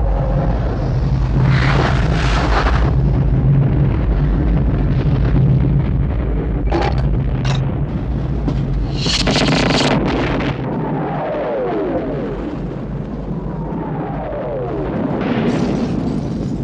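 Film sound effects of explosions over a continuous heavy rumble. There are blasts about 2 s in and around 9 to 10 s, and two short sharp cracks near 7 s. In the second half come several whistles, one after another, each falling in pitch.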